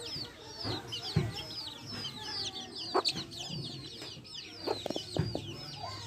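A brood of chicks peeping nonstop: rapid, high cheeps that slide downward, overlapping one another. Hens cluck now and then, with a few short knocks among the calls.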